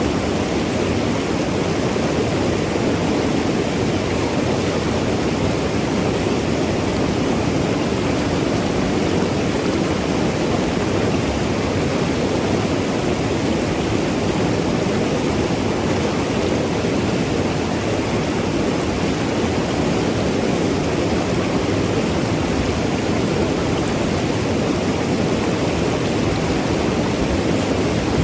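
Mountain river rushing and gurgling over rocks in a steady, unbroken wash of water noise.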